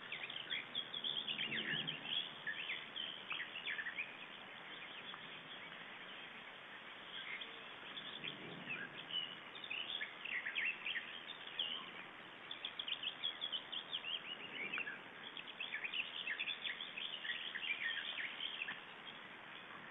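Birds chirping in repeated bursts of quick, high notes over a steady background hiss.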